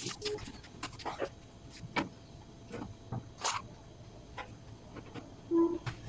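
Scattered light knocks and clicks of dishes and utensils being handled on a kitchen counter, with a short low tone about five and a half seconds in.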